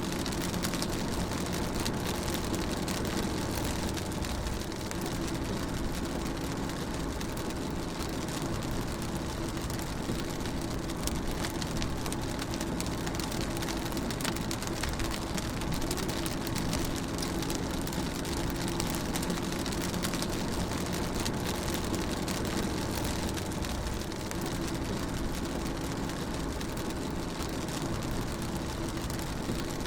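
Rain falling on a car as it drives, heard from inside the cabin, over a steady low drone of engine and road noise.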